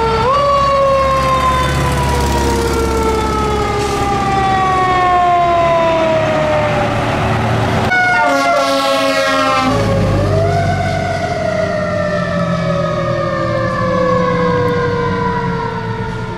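Fire engine sirens, one after another. The first siren rises at the start and then falls slowly and steadily in pitch over several seconds, over the rumble of the truck's engine. About 8 s in, a second fire engine's siren gives a fast warble for a couple of seconds, then rises again and slowly falls.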